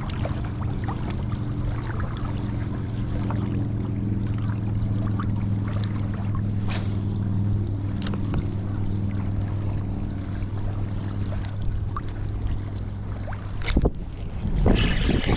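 A boat's engine runs steadily with a low, even drone, with a few sharp clicks. Louder, noisier sound comes in near the end.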